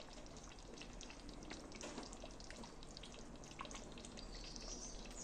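A pot of fumbwa stew simmering, with faint, irregular small bubbling pops.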